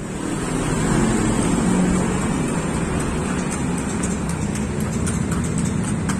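Motorcycles running and passing along a street, a steady traffic rumble; a run of light clicks comes in over the second half.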